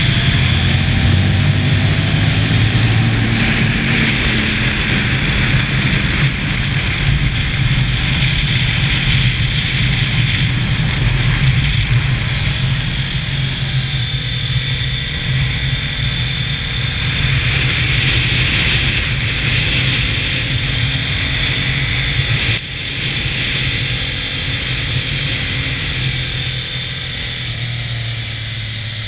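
Ducati L-twin motorcycle engine running at track speed, its note rising and falling through the corners, under a steady rush of wind over the onboard camera. The sound dips suddenly for a moment about 23 seconds in.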